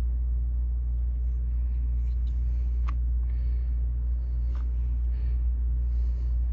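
Home air conditioning system running just after being switched on at the thermostat: a steady low rumble, with a couple of faint clicks.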